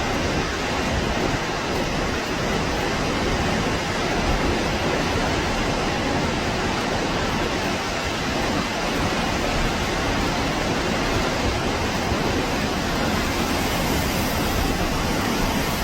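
Steady, even rushing noise with no breaks, rhythm or pitch, spread evenly from deep to high.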